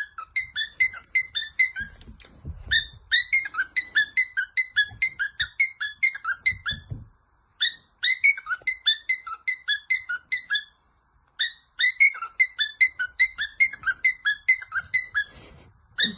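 Cockatiel imitating a digital alarm clock: rapid high beeps, about four or five a second, in long runs broken by short pauses.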